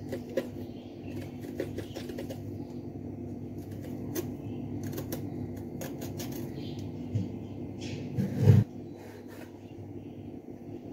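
Small knife scraping and clicking as a green-skinned vegetable is peeled by hand, over a steady low hum. A single loud low thump comes about eight and a half seconds in.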